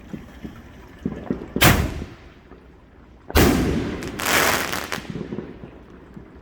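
Consumer fireworks going off: a few small pops, then two loud bangs about a second and a half apart, the second followed by a hiss lasting under a second.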